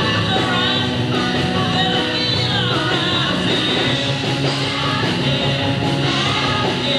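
Live rock band playing a song at full volume: drums and keyboards under a lead singer on a microphone.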